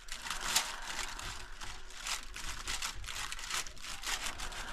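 Plastic roasting bag and aluminium foil crinkling in irregular rustles as roast meat inside them is cut with a knife and fork.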